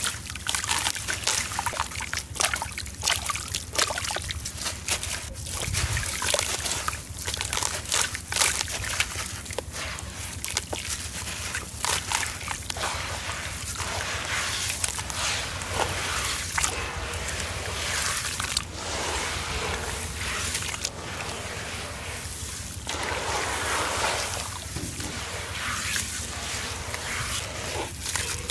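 Soaked lumps of sand-cement mix being squeezed and crumbled by hand in a basin of water: many small gritty crackles, with sloshing and trickling as grains and water fall back into the basin.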